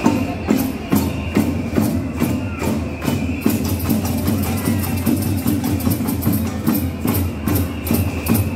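Festival street music driven by percussion, with a steady beat of about two strokes a second.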